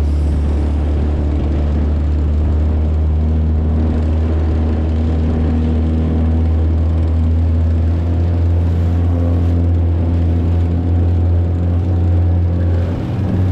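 Tiller outboard motor on a small polyethylene boat running steadily at speed across choppy water, a constant low drone with water and wind noise over it, dipping briefly near the end.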